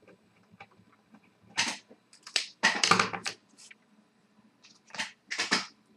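Hockey trading cards and their plastic sleeves being handled: several short bursts of rustling and crinkling, the loudest about three seconds in.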